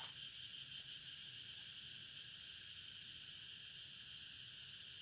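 Faint, steady, high-pitched insect chorus.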